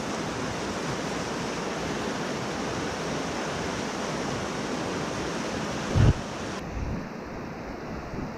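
Rushing river rapids: a steady, even roar of fast water over rocks. About six seconds in there is a brief low thump, the loudest moment.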